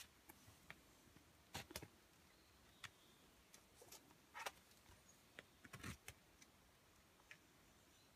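Near silence broken by scattered faint clicks and scuffs: a climber's shoes and hands shifting on the rock of an overhanging boulder.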